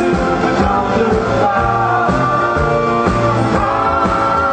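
Live band playing a song with singing over a steady beat.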